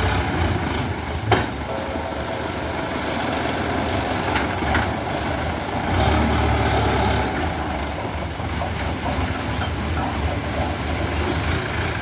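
A heavy machine's engine running steadily, with one sharp clank about a second in and the engine growing louder for a moment about six seconds in.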